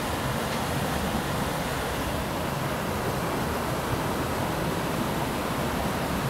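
Steady rushing of a mountain stream at a ford, an even wash of water noise.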